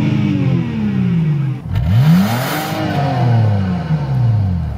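A car engine revved twice. Each time the pitch sweeps up and then falls back over a second or two, the second rev starting about two seconds in.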